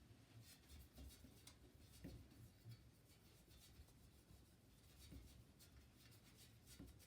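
Near silence, with faint scattered light clicks and rubbing scattered through it.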